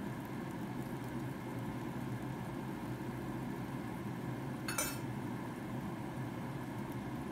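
One sharp clink of kitchenware being handled, with a short ring, about five seconds in, over a steady low kitchen hum.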